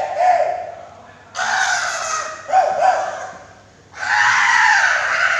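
A group of voices shouting a rehearsed cheer in loud bursts: one a little over a second in, another right after it, and a longer one about four seconds in.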